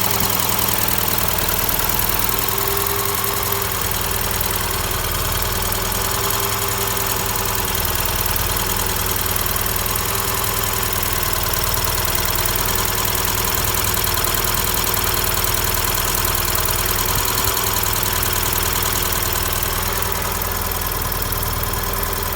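Ford Sierra's 2.0-litre OHC four-cylinder engine idling steadily, with an extraneous noise in the engine that the owner is trying to track down.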